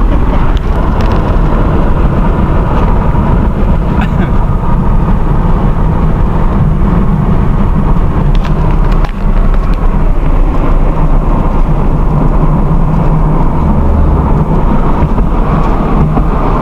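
A car's engine and tyre noise heard from inside the cabin while driving at highway speed: a loud, steady drone.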